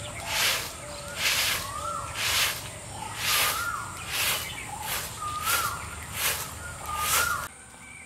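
Broom sweeping sandy ground in regular swishing strokes, about one a second, with a bird calling again and again in short rising-then-falling notes. The sweeping stops near the end.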